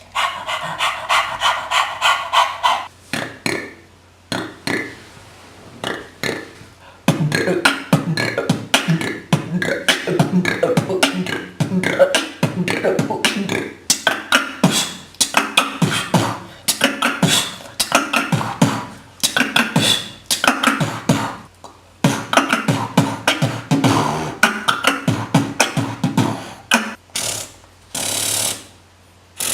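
A person beatboxing: a held buzzing vocal tone for the first few seconds, a quieter pause, then a long run of fast rhythmic mouth percussion with clicks and kick-like hits, and hissing near the end.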